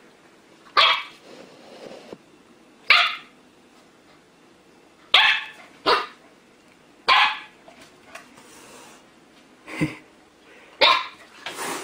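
Siberian husky puppy barking in short, high yappy barks, about seven of them spaced a second or two apart.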